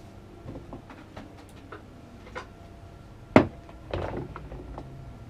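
Light clicks and taps of things being handled on a workbench, with one sharp knock a little past the middle and a duller knock just after it.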